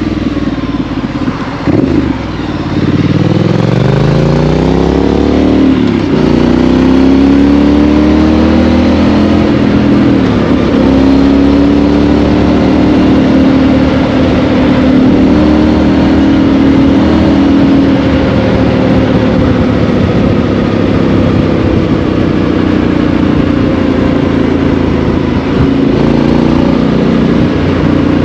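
Triumph Street Scrambler's 900 cc parallel-twin engine through a Vance & Hines exhaust, heard from the rider's seat. The revs drop off to a low pull, then climb hard with two upshifts about six and ten seconds in, and the engine settles into a steady cruise.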